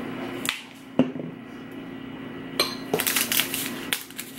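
A single sharp click about a second in as the cinnamon shaker is handled, then, over the last second and a half, the crackling rustle of a paper sweetener packet being torn open.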